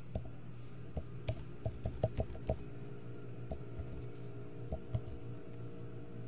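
Computer keyboard keys being typed as a password is entered: a quick run of keystrokes about one to two and a half seconds in, then a few single key presses.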